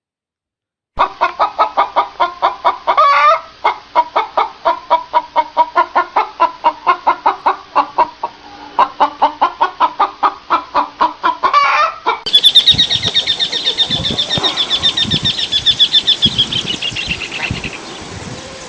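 A chicken clucking in a quick steady rhythm of about three or four clucks a second, broken twice by a longer squawk. About twelve seconds in it gives way to geese calling in a fast, dense series.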